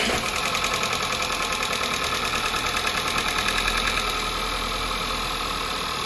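VW Polo 1.2 TSI (CBZA) four-cylinder petrol engine idling steadily in the first seconds after start-up, a little quieter after about four seconds. It runs smoothly with no timing-chain rattle on a newly fitted, updated timing chain and tensioner.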